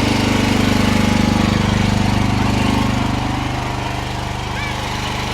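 AGT H12R mini excavator's small engine running steadily, working harder for about the first three seconds and then easing off slightly.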